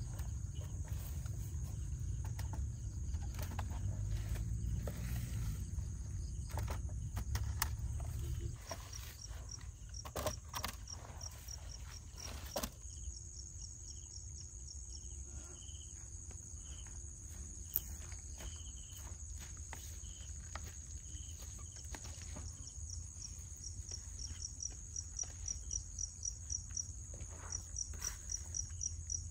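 Insects chirring steadily at a high pitch, with crickets adding trains of rapid high chirps that grow stronger near the end. A low rumble with a few knocks fills the first third, then stops.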